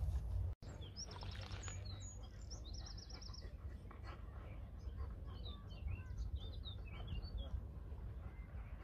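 Small songbirds singing: two fast high trills of repeated notes in the first few seconds, then scattered short chirps, over a low steady rumble.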